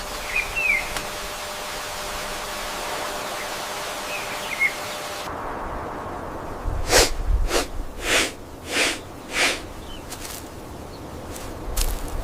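Steady rain-like hiss with a couple of short bird chirps, which cuts off abruptly about five seconds in. A run of about five quick whooshes follows, roughly two a second, with a few more near the end.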